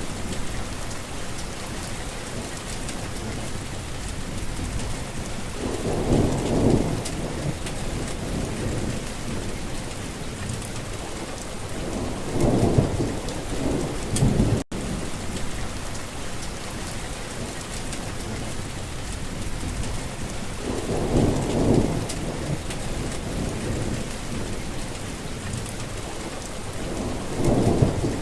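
Steady rain with four low rumbles of thunder swelling and fading, spaced about six to eight seconds apart. A split-second gap in the sound about halfway through.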